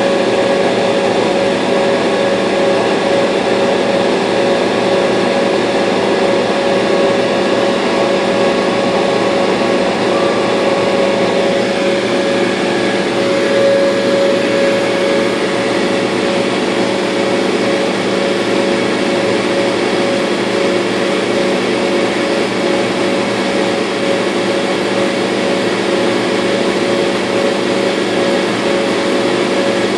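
Laser cutter running as it cuts birch: a steady mechanical hum with a few held whining tones, from the machine's fans and air pump.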